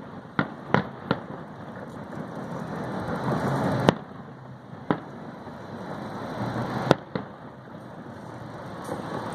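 Aerial fireworks bursting: about seven sharp bangs at uneven intervals, three close together in the first second, the loudest about four and seven seconds in, over a steady background hiss.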